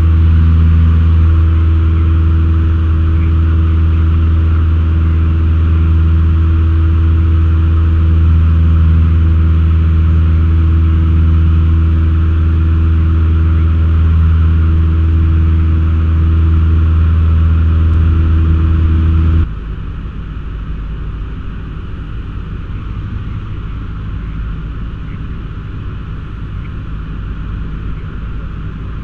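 Cabin noise of a Cessna 152 in flight: its four-cylinder Lycoming engine and propeller drone steadily at one constant pitch. About two-thirds of the way through, the sound changes abruptly to a quieter, hissier drone with no clear engine tone.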